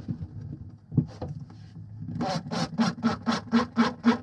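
Makita 18V cordless driver driving a screw: a low motor whir with a couple of knocks, then from about two seconds in a steady rattling pulse of about four beats a second.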